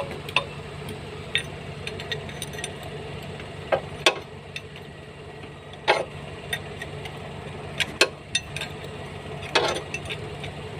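Sharp metallic clinks and knocks, about seven at irregular intervals, over a steady low mechanical hum.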